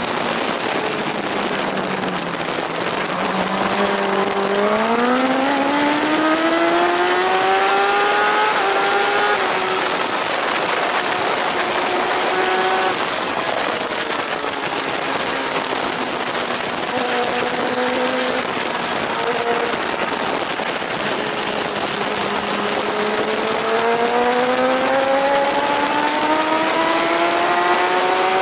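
JSB1000 superbike engine at race pace, heard from the bike itself over strong wind rush. The revs climb from low in the first seconds with short steps at the gear changes, sink and hold lower under braking in the middle, then climb steadily again toward the end.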